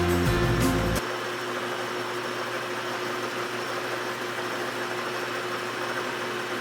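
Background music for about the first second, then cuts off, leaving the steady hum of an engine lathe running, with one constant tone through it.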